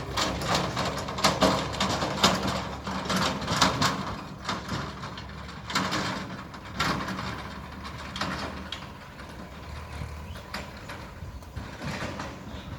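Diesel engine running steadily under repeated scraping and clanking knocks, which are busiest in the first half and thin out later.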